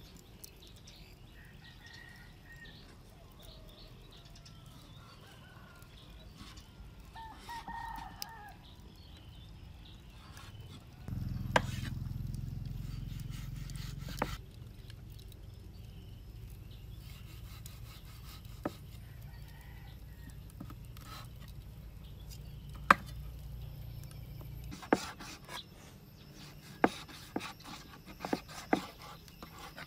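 A cleaver chopping raw pork on a wooden cutting board: sharp knocks, scattered at first and coming in a quick run in the last few seconds. A faint bird call comes about eight seconds in, and a low rumble starts about eleven seconds in, loudest for about three seconds.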